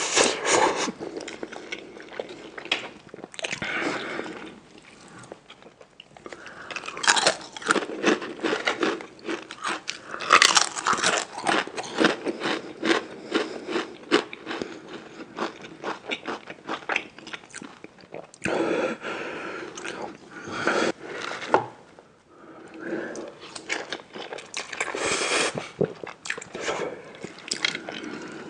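Close-miked eating: biting and chewing crunchy food, with crisp crackling crunches coming in bouts and brief pauses between mouthfuls.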